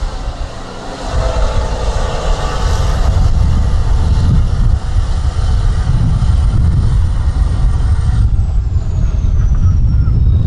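Tatra 6x6 trial truck's diesel engine running hard under load as the truck crawls up a steep dirt gully. It eases briefly about half a second in, then runs loud and steady.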